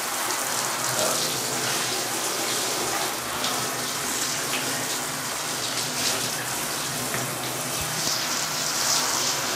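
Water running steadily from a bathtub tap and splashing into the tub while a cat is wetted for his bath.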